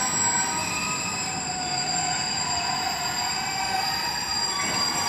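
Container freight train's wagons rolling steadily past, with a continuous high-pitched squeal from the wheels over the rumble.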